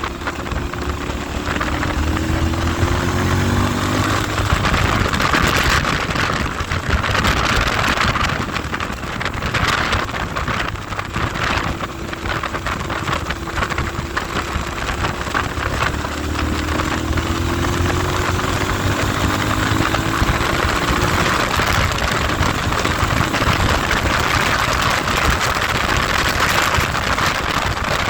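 Motorcycle engine running under way, buried in heavy wind buffeting on the microphone; the engine note slides down twice, early on and again past the middle.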